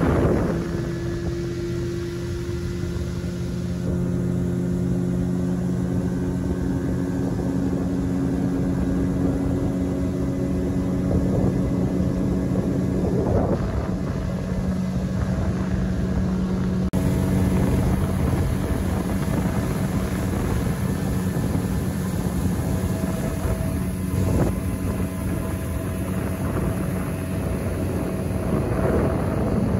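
Motorboat engine running steadily at cruising speed, with a rushing noise of water and wind. It gets a little louder about four seconds in.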